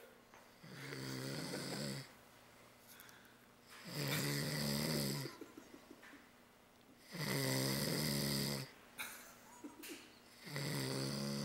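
A man snoring in his sleep: four long snores on the in-breath, each about a second and a half, coming roughly every three seconds with quiet gaps between.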